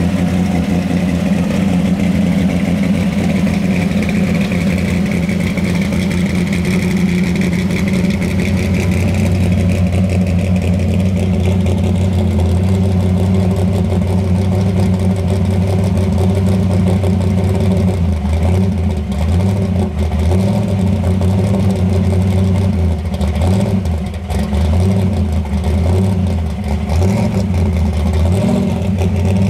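Chevrolet Nova SS V8 idling through its exhaust, with an uneven, loping beat in the second half.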